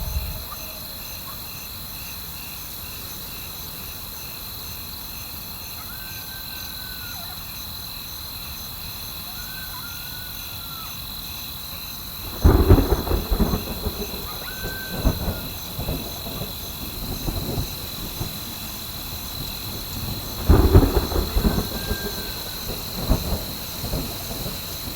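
Two thunderclaps, about halfway through and again near the end, each a sudden crack that crackles and rumbles away over a few seconds, over a steady chirring of insects.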